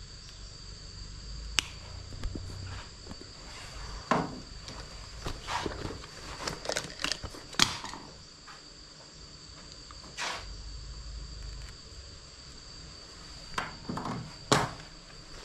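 Hand pliers clicking and rustling as they work on a cable, with sharp clicks about a second and a half in, a cluster of handling noises in the middle, and a loud click near the end. A steady high insect trill sounds behind it.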